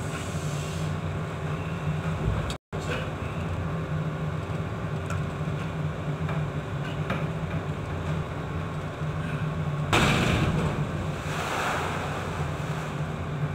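Ship's steady engine drone under the noise of wind and heavy sea. About ten seconds in, a wave strikes the ship with a loud rush of water and spray that fades over a couple of seconds.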